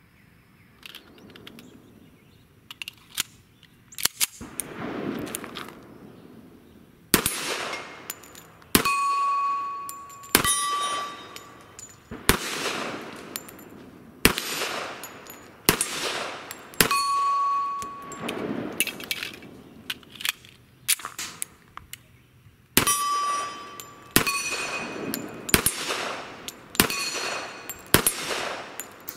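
Colt Gold Cup Trophy 1911 pistol in .45 ACP fired in slow aimed shots about one to two seconds apart, in two strings with a pause of a few seconds between. Several hits ring the steel targets with a short metallic ding. A few fainter cracks come before the first loud shot.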